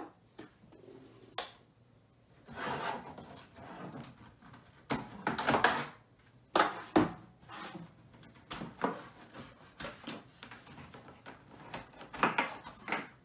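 Cables being unplugged from the back of an Amiga 500 and its plastic case and external drive handled on the desk: a string of irregular clicks, knocks and short rubbing scrapes, the sharpest knocks about halfway through.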